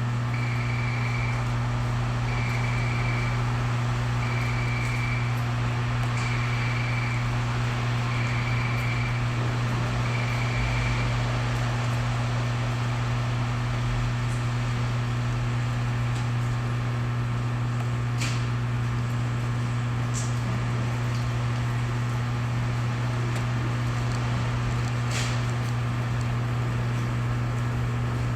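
Inside a Keio 8000 series train car: a steady low hum of the train's onboard equipment with an even rushing noise. A short high beep repeats six times, about every two seconds, then stops; a couple of sharp clicks come later.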